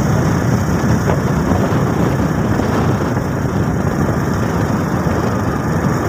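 Motorcycle engine running steadily while riding along an unpaved gravel road, mixed with wind and road rumble.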